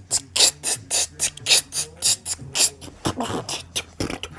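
Mouth-made beatbox hi-hat: a steady rhythm of short, breathy 'ts' hisses, about four a second, with a few voiced sounds mixed in about three seconds in.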